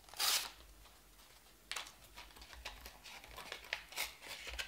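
Knife blade cutting open a small paper packet, with the paper crinkling and scraping: one loud rasp about a quarter second in, then scattered small scratches and ticks.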